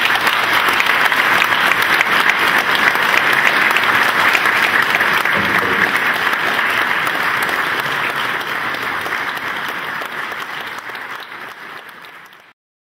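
Audience applauding at the close of a speech. The applause is loud at first, thins out over the last few seconds and cuts off abruptly.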